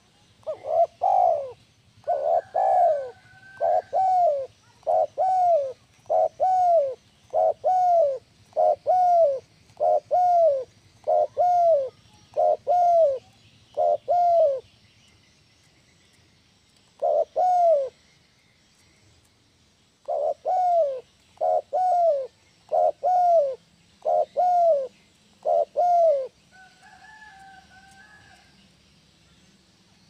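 Spotted dove cooing: a long run of short, evenly spaced coos, about one a second, breaking off for a few seconds midway and stopping a few seconds before the end.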